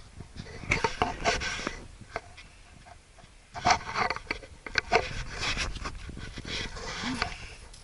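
Grapevine leaves rustling and scraping against the camera as it pushes through the vine, in two spells of crackly rubbing noise: a short one about a second in and a longer one from about three and a half seconds.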